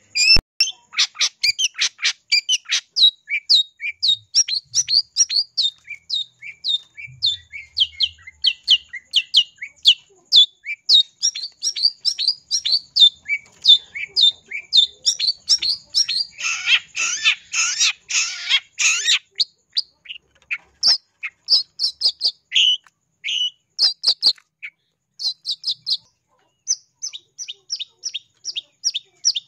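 Long-tailed shrike calling in a fast run of short, sharp chirps, several a second, broken about halfway through by a couple of seconds of harsh, scratchy chatter, after which the chirps come more sparsely.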